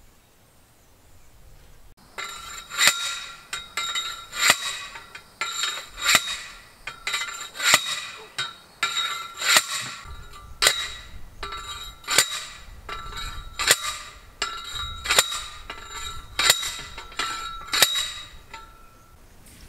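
Steel T-posts being driven into the ground with a metal post driver: a steady run of ringing metallic clangs, a little more than one a second, starting about two seconds in.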